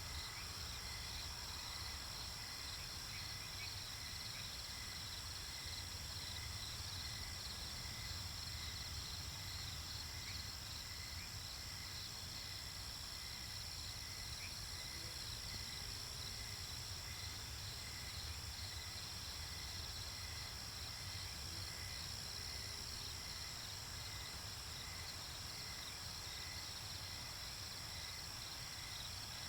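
Night-time insect chorus: crickets chirping in steady, regular pulses over a continuous high trill, with a low rumble beneath.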